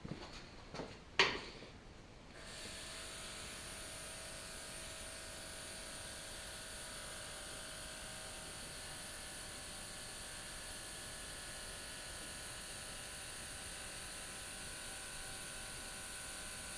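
A few handling clicks, then about two seconds in a small air compressor for an airbrush starts and runs steadily with an even hum and a high hiss.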